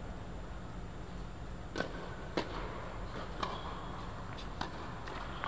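Tennis ball being struck by rackets and bouncing on a hard indoor court during a rally: several sharp pops at uneven spacing, with a short echo after some of them, over a steady low rumble.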